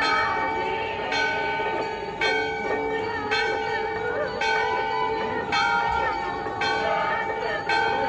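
Hindu temple bell struck steadily about once a second, each stroke ringing on into the next, with voices underneath.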